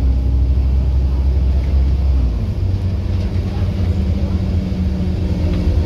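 Scania N230UD OmniCity bus engine and drivetrain heard from inside the passenger cabin while the bus drives, a low drone whose note changes about two seconds in. It is a very tired bus that holds each gear a long time.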